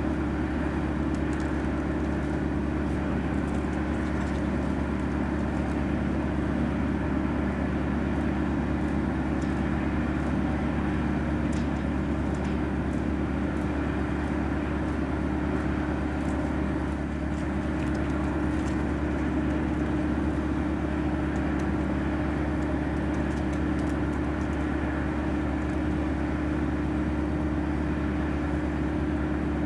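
Auxiliary power unit of a parked UH-60M Black Hawk running steadily before engine start, rotor still stopped: a steady hum with several held tones.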